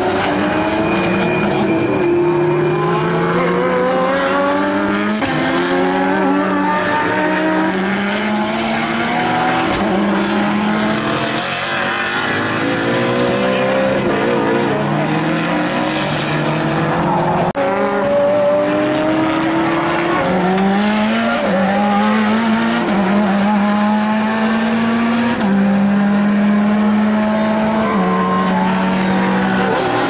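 Race car engine driven hard around a circuit, its pitch climbing through each gear and dropping at the shifts, several times over.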